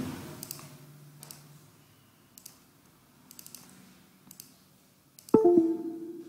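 Soft, scattered computer mouse clicks, then about five seconds in, music starts with loud plucked-string notes that ring and fade.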